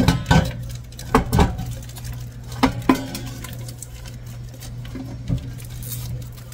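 Frozen whole chicken knocking against the inside of a speckled enamel stock pot as it is handled out of its bag. There are sharp clunks in pairs: two at the start, two a little after a second in, two near three seconds, and a single one after five seconds.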